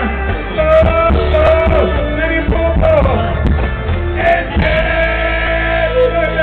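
Live rock band playing loudly: drums, bass and keyboard under a lead melody that bends in pitch.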